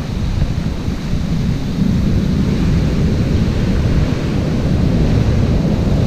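Heavy storm surf breaking and washing up over the beach, a dense, low rumble that grows a little louder about two seconds in, with wind buffeting the microphone.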